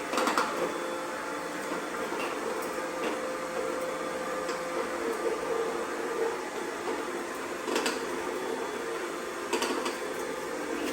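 Small cheap robot vacuums running: a steady motor and brush whir, with a few short clicks.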